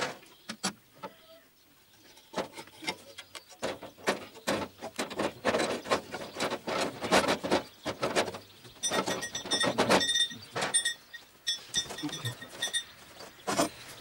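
Hand tools clicking and knocking on the metal parts of a T-150K tractor's stopped engine as it is being taken apart. The first couple of seconds are quieter, then come many sharp clicks and clanks, with short high metallic ringing about nine to thirteen seconds in.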